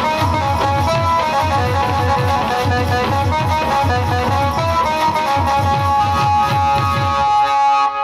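Instrumental dance music: a melody over a fast, repeating drum rhythm. The drums drop out about seven seconds in, leaving held notes.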